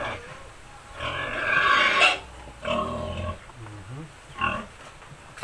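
Pigs at a farrowing: newborn piglets squealing and the sow grunting, in several short bursts, the loudest about one to two seconds in.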